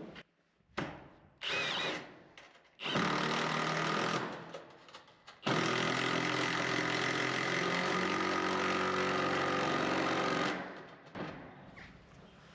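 Milwaukee 1/2-inch impact wrench driving screws into a metal roof through a small 1/4-inch socket adapter: two short runs, then one steady run of about five seconds.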